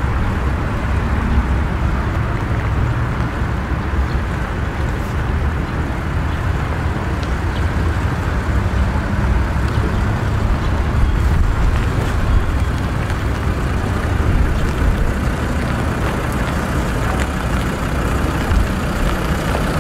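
Steady low rumble of a motor vehicle, with no clear engine note or changes.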